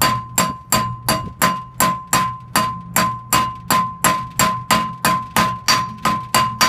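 Hammer tapping a new tapered wheel bearing race down into a VW T3 Vanagon's hub, light, even blows about three a second, each with a ringing metallic note. The race is going in straight and seating smoothly.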